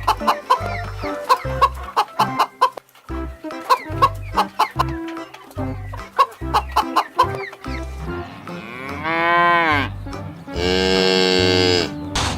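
A chicken clucking over music with a steady beat. In the last few seconds come two long moos from cattle, the first rising and then falling in pitch.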